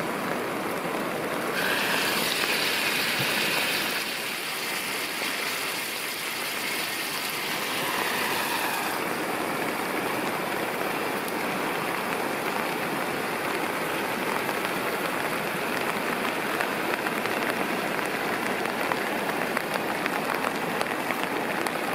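Steady hiss of rain pattering on the surroundings, mixed with bacon sizzling in a lidded frying pan and a river running. About nine seconds in, the brighter high part of the hiss drops away.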